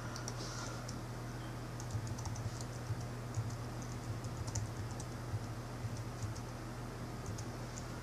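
Typing on a computer keyboard: irregular runs of key clicks, some quick and some spaced out, over a steady low hum.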